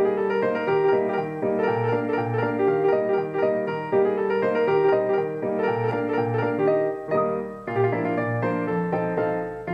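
Background piano music: a solo piano piece with a steady flow of notes.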